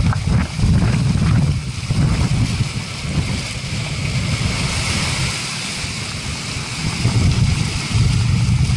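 Rough sea surging and breaking against rocks in a continuous hiss, with gusting wind buffeting the microphone in a heavy low rumble that swells and dips.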